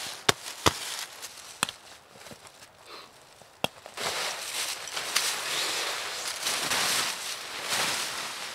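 A few sharp clicks and snaps in the first seconds, then, from about four seconds in, the heavy fabric of a Pomoly Stovehut 70 hot tent rustling and crinkling as it is pulled out of its stuff sack and spread over dry leaves.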